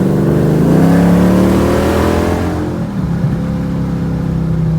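6.4 L (392) HEMI V8 with long-tube headers and a 3-inch catless, muffler-less exhaust, heard from inside the car's cabin while accelerating. Its pitch climbs for about two and a half seconds, drops about three seconds in as the throttle comes off or the next gear goes in, then settles into a steady drone.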